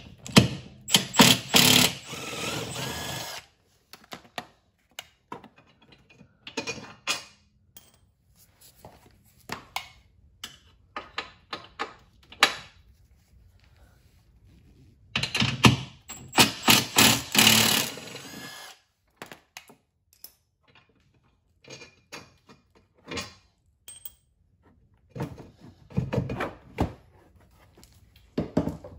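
Milwaukee cordless impact wrench running the golf cart's front bumper bolts out, in two bursts of about three seconds each. Clinks and knocks of the tool and bumper parts being handled come between the bursts.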